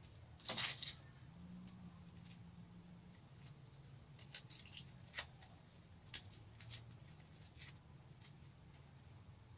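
Garlic cloves being peeled by hand with a small knife: scattered short scratches and crackles from the knife and the dry, papery garlic skin.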